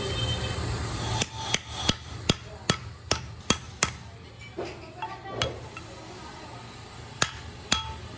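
Hammer blows on the steel yoke of a tractor PTO shaft universal joint, driving a needle-bearing cup into the yoke. A quick run of about eight sharp blows, roughly three a second, starts about a second in, followed by a few single blows later on.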